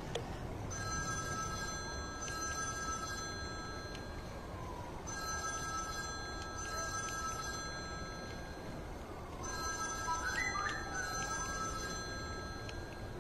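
Telephone ringing: three long rings of the same few steady tones, each about three seconds long with roughly a second's gap between them, over a steady low background noise.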